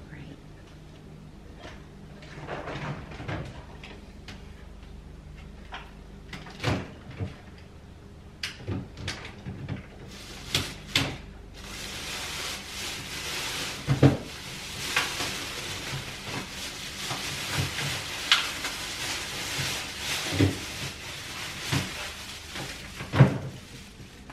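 Kitchen handling sounds: scattered knocks and clunks as refrigerator doors and things inside it are opened, shifted and closed, with a steady hiss joining in about halfway through. The sharpest knocks fall about halfway and near the end.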